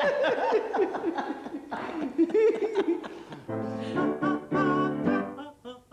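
A woman laughing heartily. About three and a half seconds in, a woman's singing voice starts in held, steady notes.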